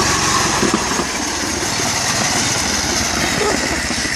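Garden tractor engine running at speed as the tractor drives away, getting a little quieter as it goes.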